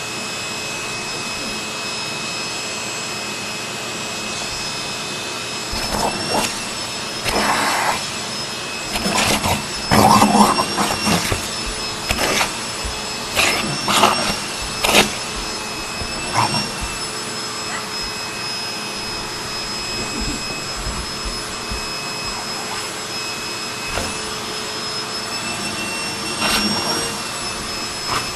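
Vacuum cleaner running with a steady whine, its metal wand held at a boxer dog. From about six seconds in until about seventeen seconds in, and again near the end, the dog lunges and bites at the nozzle: a run of loud irregular knocks and scuffles, with the suction whine wavering as the nozzle is jostled.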